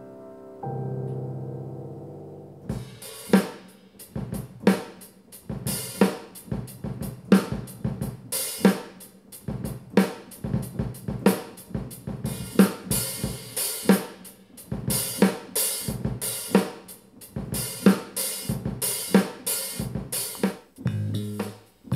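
Sampled drum kit played from a weighted MIDI keyboard: a steady kick, snare and hi-hat beat with a strong accent about every second and a quarter. The last sustained notes of a sampled piano fade out in the first couple of seconds before the beat starts, and a sampled bass line comes in near the end.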